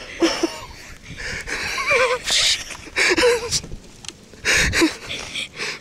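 People breathing hard in quick gasps, with a few shaky, wavering vocal sounds and fleece clothing rubbing against the microphone.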